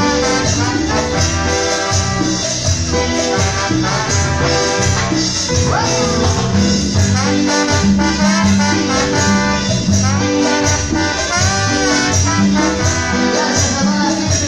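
Live band playing Latin dance music: a trumpet and a keytar carry the melody over bass and drums, without a break.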